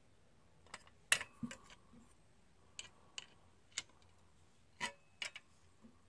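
About a dozen sharp metallic clicks at uneven intervals from a torque wrench being worked on a quarter-inch bolt anchored in a concrete block wall, the loudest about a second in.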